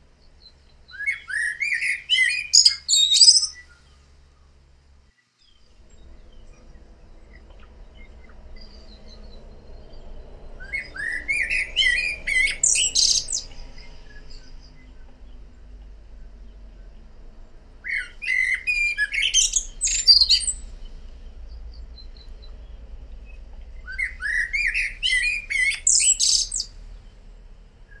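Male common blackbird singing four phrases several seconds apart, each starting with lower whistled notes and climbing into a fast, high twittering end.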